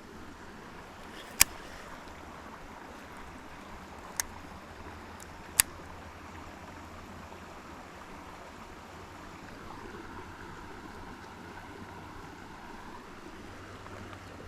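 Faint, steady outdoor background noise, broken by three short, sharp clicks spaced a few seconds apart in the first half.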